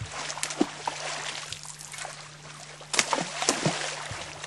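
Trout thrashing in shallow stream water around a person's wader-clad legs: a run of sharp splashes and sloshing, the loudest about three seconds in.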